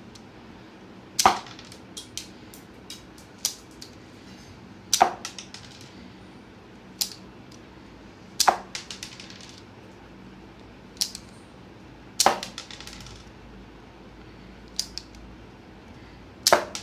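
Lego Technic rubber-band pistol firing its Lego-piece bullets one at a time: five sharp plastic snaps about three and a half seconds apart, each followed by a few smaller clacks. Fainter single clicks fall between the shots.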